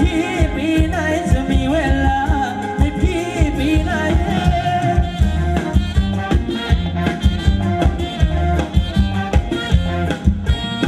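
Live Thai ramwong dance band playing: a singer's wavering vocal line over a fast, steady drum beat, the voice dropping out about four seconds in while the band carries on.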